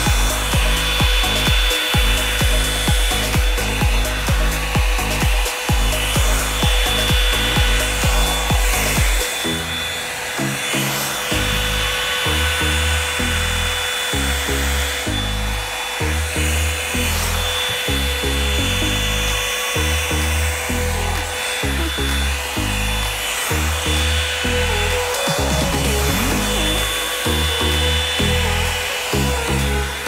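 Background music with a steady bass beat, whose pattern changes about nine seconds in, over the steady whir of a Revlon One-Step hair dryer brush blowing.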